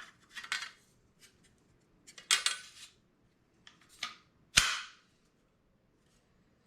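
Metal firearm parts being handled during assembly: a few clicks and short scraping knocks, ending in one sharp, louder knock about four and a half seconds in.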